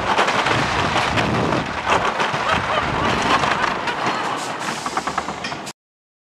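Wooden roller coaster train rumbling and clattering over the track with many sharp clicks, getting quieter as it slows into the station. The sound cuts off abruptly near the end.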